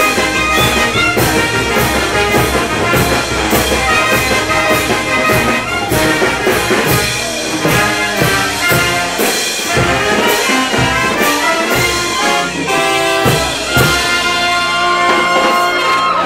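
Brass band playing, trumpets and trombones holding notes over a steady drum beat.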